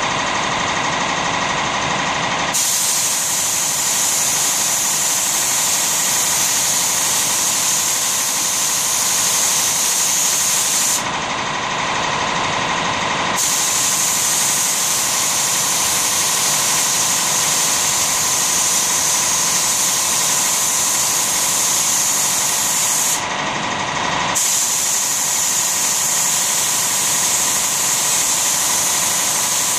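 Air spray gun hissing steadily as it lays finish on a mahogany cabinet, with a motor running underneath. The spray stops for a couple of seconds at the start, again about 11 seconds in and about 23 seconds in, while the motor keeps running.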